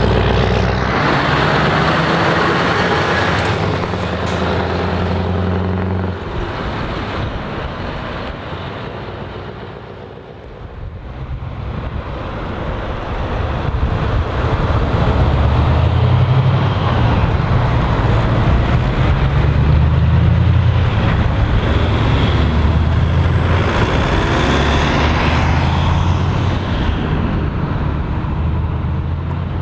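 Heavy diesel truck engines pulling away one after another, a deep, loud engine note. One truck's engine drones steadily until the sound cuts off about six seconds in. From about twelve seconds another truck, a MAN TGX tractor unit, accelerates through a turn, its engine note rising and dipping through the gears before fading near the end.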